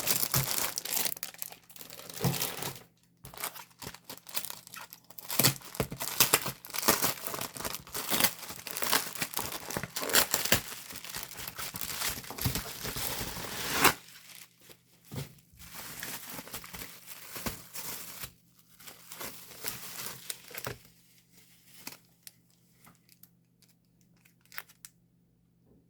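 Plastic sleeves and wrapping crinkling and rustling as photocards are handled and sorted by hand. The handling is dense for about fourteen seconds, then becomes lighter and more scattered, and it dies away to faint rustles near the end.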